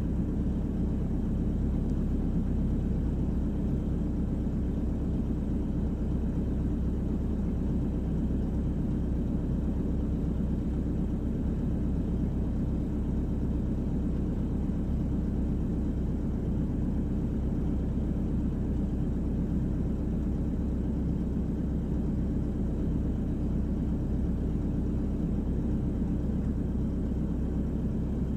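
Volvo EWR150E wheeled excavator's diesel engine running steadily under working load, a constant low drone heard from inside the operator's cab as the bucket levels sand fill.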